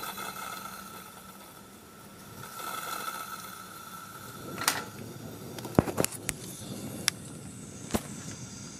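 Coleman Gold Bond 200A pressurized gas lantern being lit: a steady hiss with a high whine, several sharp clicks and knocks in the second half, and the lantern burning with an even high hiss near the end.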